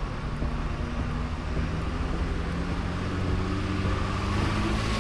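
A motor vehicle's engine running over road noise, its pitch slowly rising in the second half as it speeds up.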